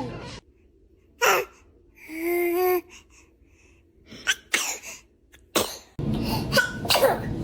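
A newborn baby sneezing: several small, sharp sneezes, spread across a few seconds with quiet between them.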